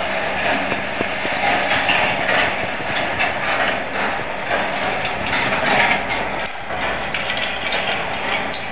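Balls rolling and rattling along the copper-wire tracks and funnels of a motor-driven rolling ball sculpture: a steady rolling rattle dotted with many small clicks and ticks.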